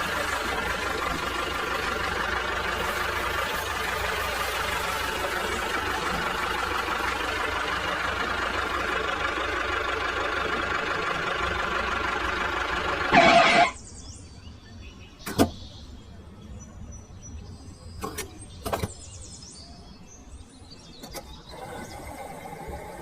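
A motor running steadily, which stops about thirteen seconds in after a short loud burst; a few sharp clicks follow.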